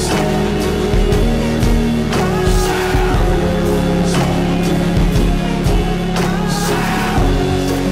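Background pop music with a steady beat and sustained instrumental notes.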